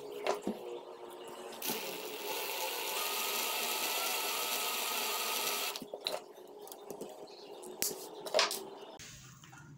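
Drill motor running steadily for about four seconds, spinning a screw in its chuck to wind steel wire into a tight coil around the threads. Sharp clicks and taps of handling the drill, screw and wire come before and after the run.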